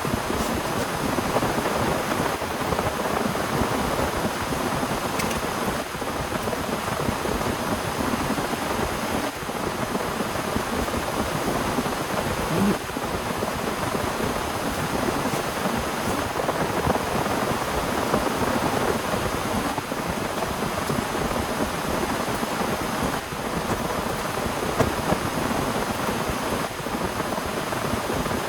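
Heavy rain falling steadily, a dense hiss with the patter of countless drops.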